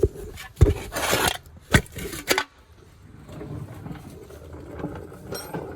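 Several sharp knocks and a short scrape of things being handled in the first two and a half seconds, then a faint low rumble.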